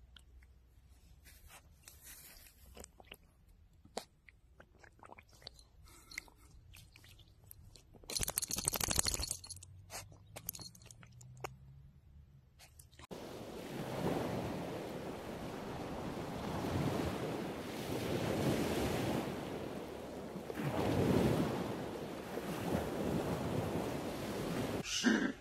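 Dachshund puppy mouthing a frozen puddle: a run of small crunches and clicks of ice, denser and louder about eight seconds in. After about thirteen seconds, a steady rushing noise like wind on the microphone.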